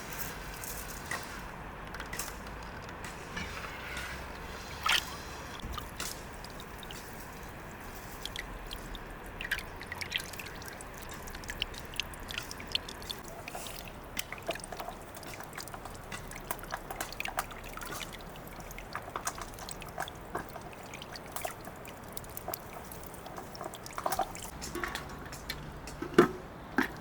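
Liquid trickling and dripping, with scattered light clicks and taps throughout.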